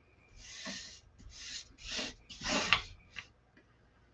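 Hands rubbing and sliding an adhesive silk screen transfer over a wooden sign board: about five short swishing strokes, the loudest near three seconds in.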